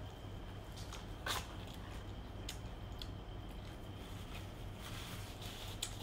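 A crunchy bite into the crispy coating of McDonald's Ayam Goreng extra spicy fried chicken about a second in, then a few faint chewing clicks, over a steady low hum.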